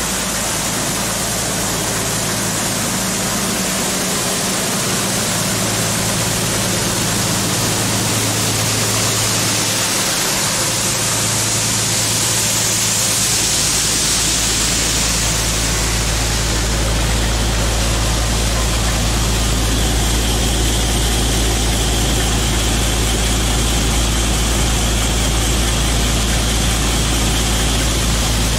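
Allis-Chalmers Gleaner A combine running with its Perkins P6 diesel engine driving the unloading auger, grain pouring out with a steady rushing hiss over the engine's hum. About halfway through a deep low rumble grows heavier.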